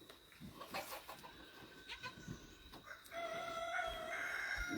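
A rooster crowing once, one long held call starting about three seconds in and lasting nearly two seconds, fairly faint. Before it, faint rustling and small knocks.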